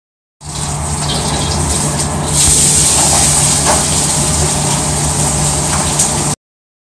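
A loud, steady rushing hiss over a low hum, like gushing water or a roaring gas flame, that cuts in abruptly, gets a little louder partway through and cuts off just as abruptly.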